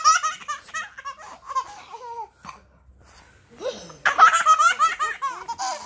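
A baby laughing hard while being tickled, in two bouts of quick, high-pitched laughter, the second starting a little past halfway.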